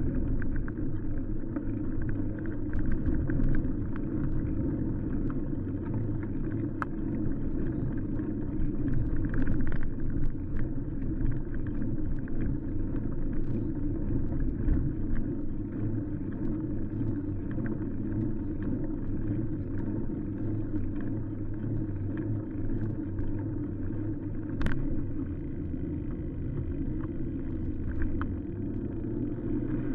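Steady low rumble of a touring bicycle on the move, tyre and wind noise, with scattered light clicks and rattles, the sharpest near the end.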